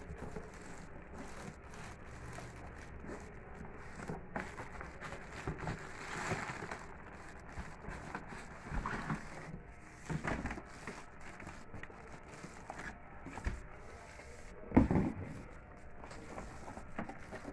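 Plastic wrapping crinkling and cardboard scraping as a bagged Epson M2140 printer is worked loose and lifted out of its shipping box. There are irregular handling knocks throughout and one sharp thump near the end.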